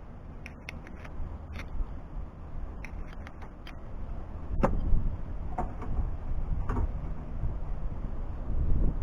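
A new hood latch assembly and its release cable being handled and fitted: scattered light metallic clicks and ticks, with a sharper knock about four and a half seconds in, over low handling rumble that grows in the second half.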